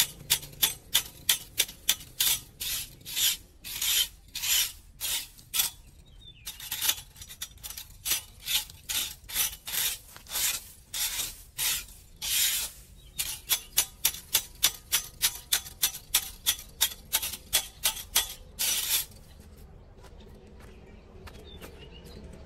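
Tines of a small fan rake scraping sand, grit and dry leaves across concrete paving in quick repeated strokes, about two a second, stopping about three seconds before the end.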